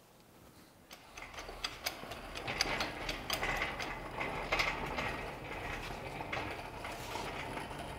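Steel two-ton engine hoist (shop crane) being wheeled across a concrete shop floor: its casters rolling and its frame rattling with a run of irregular clicks, starting about a second in.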